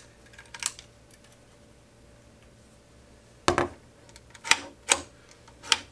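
Metal clicks from a Savage-made Squires Bingham .22 semi-automatic rifle's action: a few faint clicks about half a second in, then four sharp clacks spread over the last two and a half seconds as the action is cycled by hand after reassembly, the bolt snapping back and forward.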